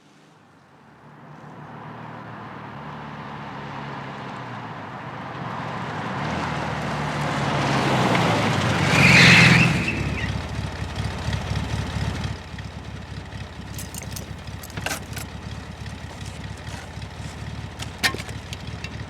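A car engine drawing near and pulling up, getting louder to a peak about nine seconds in with a brief high squeal, then running at a lower idle. A few sharp clicks come near the end.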